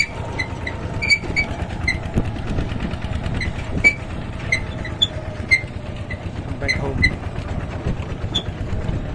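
Farm vehicle engine running steadily, heard from the wooden trailer bed it pulls along a dirt track. Frequent short, high squeaks come and go over it at irregular intervals.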